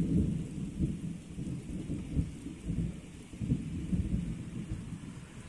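Thunder: a sudden loud clap right at the start, then a deep rolling rumble with repeated low crackles that slowly fades over several seconds, over a faint steady hiss.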